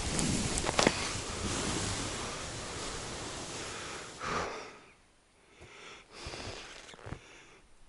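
Wide hunting skis hissing as they slide over snow on a downhill run, with a few sharp clicks near the start and a louder swish about four seconds in. The sliding then stops and only faint scrapes and crunches are left.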